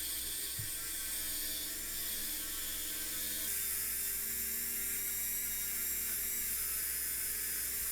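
Small high-speed power tool whirring steadily, its whine shifting slightly in pitch a couple of times.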